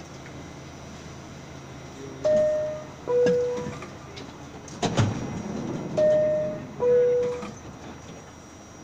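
Subway car door chime on an R68A train, a two-note falling ding-dong, sounding twice, with a sharp knock between the two chimes. The chime is the warning that the doors are about to close. A steady low hum of the stopped train runs underneath.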